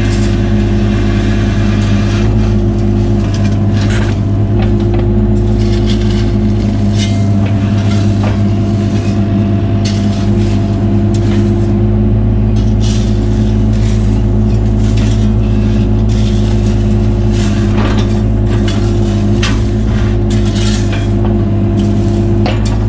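Cat 303 mini excavator's diesel engine running steadily at high throttle, with frequent short clanks and scrapes of metal and stone on top.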